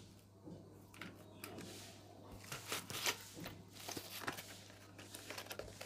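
Faint handling noises: scattered light clicks, taps and rustles as hands move a plastic toy remote-control car on a cardboard box, over a steady low hum.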